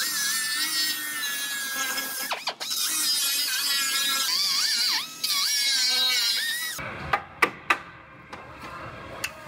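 Cut-off wheel whining as it cuts through a car's steel frame rail, its pitch steady at first and then dipping and rising with the load; it stops abruptly about seven seconds in, followed by several sharp taps.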